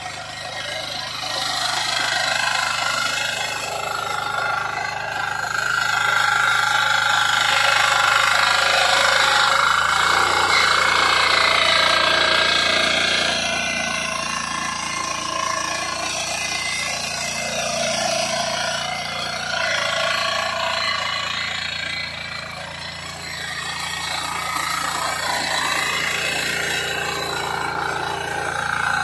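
KisanKraft KK-IC-350D mini power tiller's diesel engine running under load as its rotary tines churn through soil. The engine note changes about ten seconds in.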